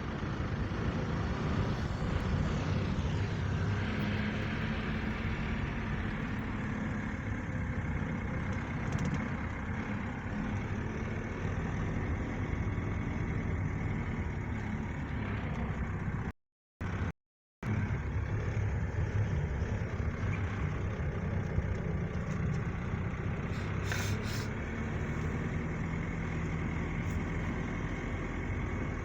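Steady engine and road noise heard from inside a moving vehicle, a low rumble with tyre hiss above it. The sound cuts out completely twice, briefly, about sixteen seconds in.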